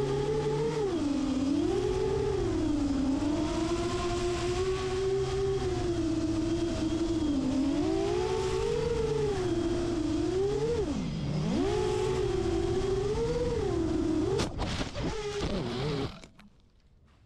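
FPV quadcopter's motors and propellers whining, the pitch rising and falling with the throttle, heard from the quad's own onboard camera. About 14 seconds in the quad strikes a tree, with several sharp clattering hits as the propellers catch branches, and the motors cut out a couple of seconds later.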